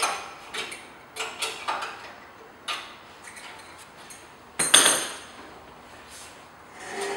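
Light metallic clicks and taps from a nut and washer being done up on the threaded outrigger of a steel dolly cart, then a single louder metal clatter about four and a half seconds in.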